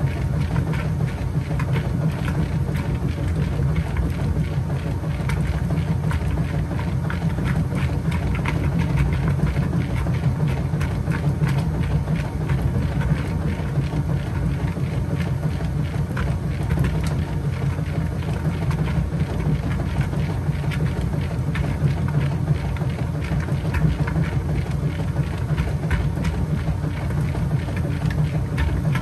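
Kenmore 80 Series top-load washing machine agitating in the wash phase of its Heavy Duty cycle: a steady low motor and transmission hum under continuous sloshing and churning of water and clothes in the tub.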